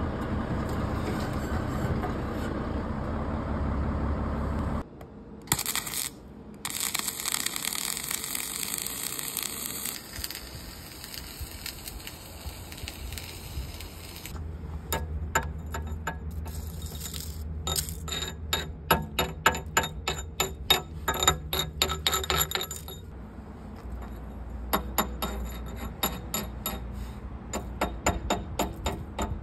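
A heavy machine's engine running steadily for the first few seconds, then a hiss, then a long run of quick, sharp metallic clinks as steel excavator bucket teeth are knocked and fitted into place over a low hum.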